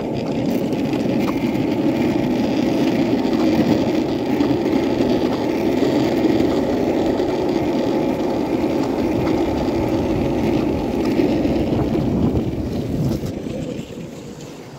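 Skateboard wheels rolling over asphalt: a steady, gritty rumble that drops away sharply near the end.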